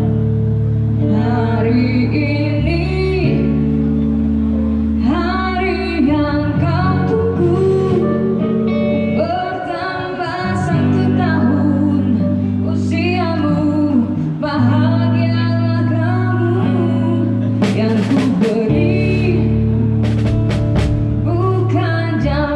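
Live band rehearsing a song at a sound check, with a singer over long held bass notes and guitar. A few sharp crashes come near the end.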